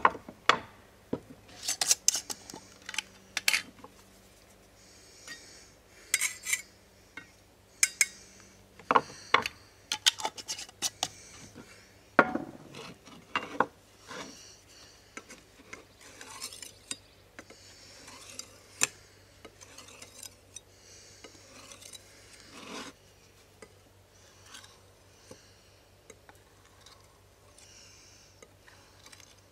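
Chef's knife being sharpened on a whetstone: irregular scraping strokes of the steel blade across the stone, with now and then a sharp click or knock of blade or stone.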